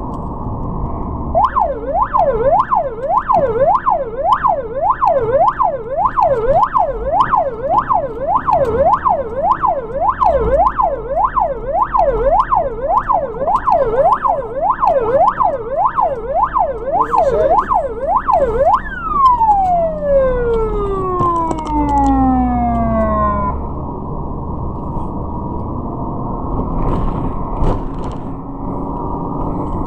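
Ambulance siren on a fast up-and-down yelp, just under two sweeps a second, for the first nineteen seconds or so. It then drops into long falling tones that die away, leaving car engine and road noise heard from inside a moving car.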